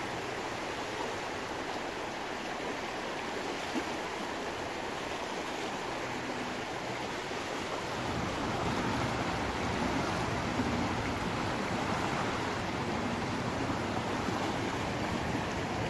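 Swollen, fast-flowing river in flood rushing past the bank, a steady rush of water that grows a little louder about halfway through.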